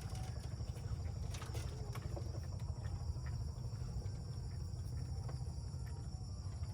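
Insects chirring steadily at a high pitch, over a constant low rumble of wind or flowing water.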